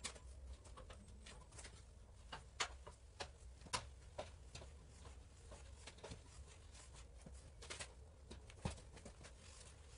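Faint, irregular clicks and knocks of a galvanized steel tube being rolled into a curve on a hand-cranked manual roller bender, as the tube and handle shift against the rollers and frame. A low steady hum runs underneath.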